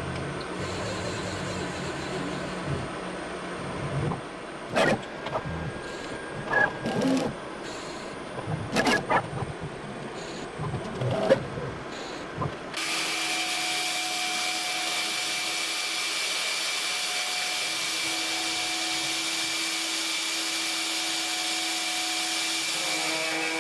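CNC router axes moving in short stepper-motor bursts with clicks while the tool is touched off on a touch plate. About halfway through, the Mafell FM 1000 router spindle takes over abruptly, running at a steady 10,000 rpm with a constant high whine, spinning a 4.2 mm carbide drill into an aluminium block.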